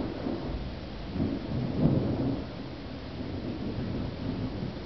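Thunder rumbling in swells that peak about two seconds in, over the steady hiss of rain.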